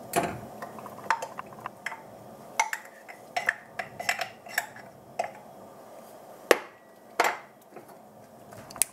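Irregular metallic clinks and taps of a wire whisk against a stainless steel saucepan, with two louder knocks past the middle.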